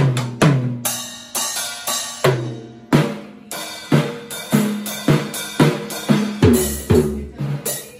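Child-sized junior drum kit played with sticks: uneven tom and snare strokes with the toms ringing, cymbal crashes about a second in and again about two-thirds of the way through, and heavy kick-drum thumps along with the second crash.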